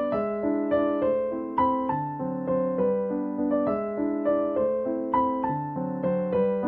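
Background piano music: notes and chords struck at a steady, unhurried pace, each fading before the next.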